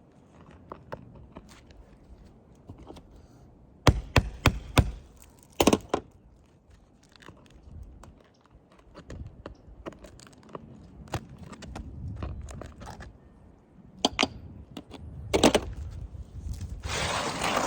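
Roofing nail being worked out of an asphalt shingle: a cluster of sharp knocks and cracks about four to six seconds in, two more single knocks later, then a scraping rustle near the end.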